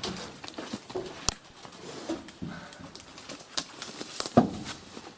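Sawn firewood logs being unloaded from a truck bed and tossed onto a pile: scattered, irregular wooden knocks and thuds, the loudest about four and a half seconds in.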